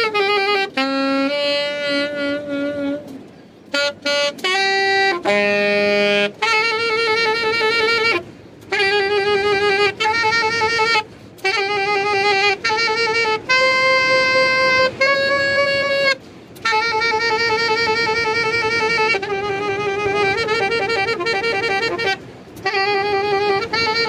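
Saxophone played live, long held notes with a wide wavering vibrato in short phrases, each broken off by a brief pause for breath.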